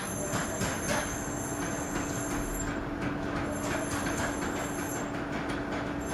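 Power hammer machine running: a steady hum with irregular light knocks and clatter, and a high whine that comes and goes.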